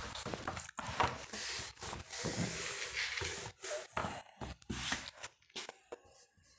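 Writing by hand: irregular scratching and rustling with scattered light taps, fading out near the end.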